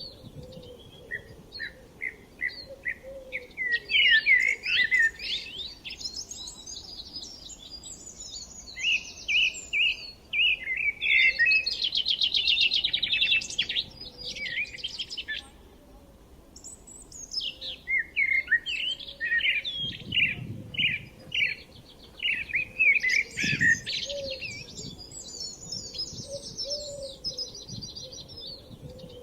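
Songbirds singing and chirping: a busy mix of short repeated chirps and rapid trills, coming in bursts with a brief lull about halfway through.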